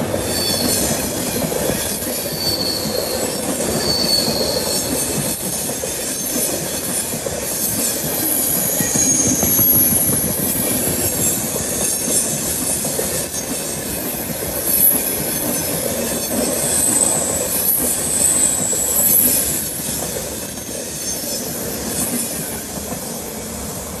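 Passenger train coaches rolling past at speed on a curved track: a steady rumble and clatter of wheels on rail, with several brief high-pitched wheel-flange squeals. The sound eases slightly near the end as the last coach moves away.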